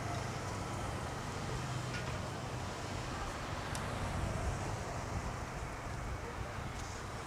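Steady city street traffic noise, with cars driving past on the road.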